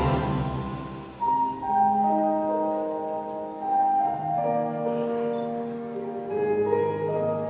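Freestyle dressage music: a dense passage fades out, and about a second in a slow melody of held notes begins.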